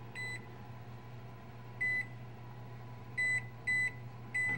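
Electronic wall-oven control panel beeping as its keys are pressed to turn the set temperature down: five short beeps, each one steady tone, irregularly spaced, three of them close together near the end.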